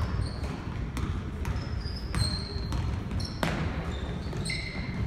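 Basketball bouncing on a hardwood gym floor, several sharp bounces about a second apart, with short high sneaker squeaks in between.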